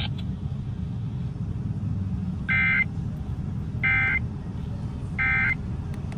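Three short warbling data bursts of the NOAA Weather Radio SAME digital code, about a second and a half apart, marking the end of the broadcast severe thunderstorm warning. They play over a steady low rumble.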